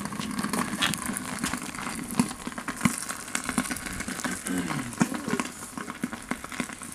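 Crackling and sizzling of sardines roasting in a very hot furnace, with sharp pops every so often.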